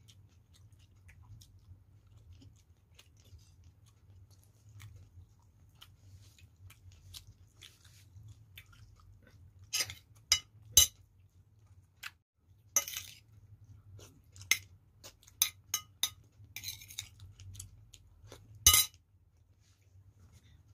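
A man eating chicken and rice by hand, close to the microphone: soft chewing with scattered sharp clicks and crunches, a cluster about ten seconds in and a loud one near the end. A steady low hum runs underneath.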